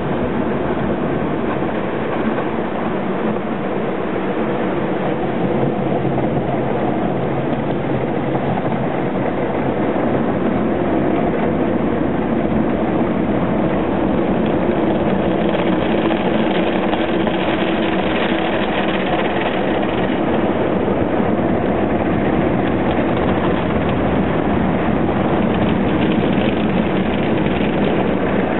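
Automatic car wash heard from inside the car's cabin: water spray and then the rotating brushes scrubbing over the windscreen and body, a steady rushing, rumbling noise that slowly grows louder.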